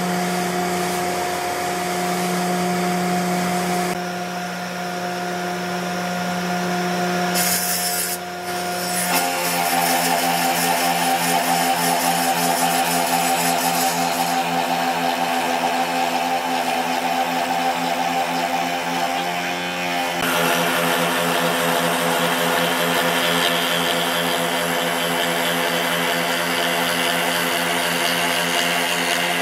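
Spindle moulder running with a steady motor hum and the whir of its spinning cutter as a wooden board is fed past on the sliding carriage; the sound grows fuller and hissier about nine seconds in.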